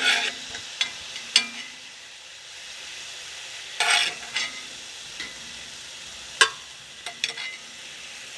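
Beef strips and soy sauce sizzling steadily in a hot wok, with a utensil scraping and clicking against the wok as the meat is lifted out: several sharp clicks and one longer scrape a little before the middle.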